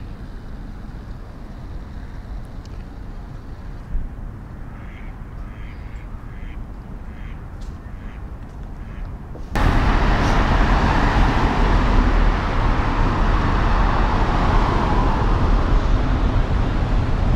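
Quiet lakeside ambience with a run of short duck quacks about five seconds in. About ten seconds in it switches abruptly to loud street noise of road traffic.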